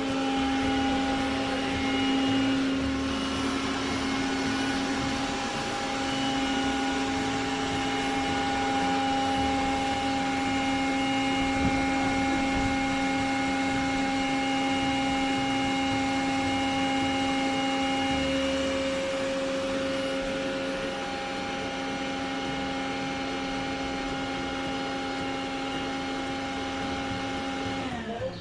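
Roborock Xiaowa E35 robot vacuum running, a steady motor hum with a held whine over it, stopping suddenly at the end.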